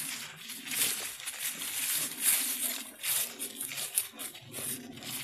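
Footsteps of a person and a dog crunching and rustling through dry fallen leaves, an irregular run of crackling steps.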